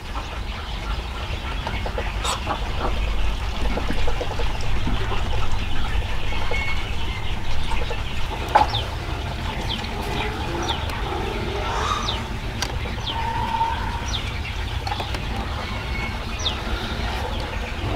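Chickens clucking, with many short high chirps over a steady low rumble.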